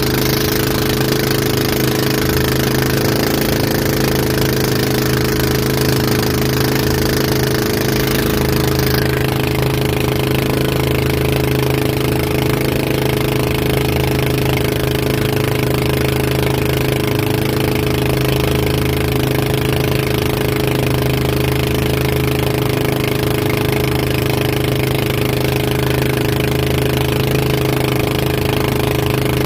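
Towing boat's engine running steadily under way at speed, loud and even, over a rushing hiss of water and wind that eases about nine seconds in.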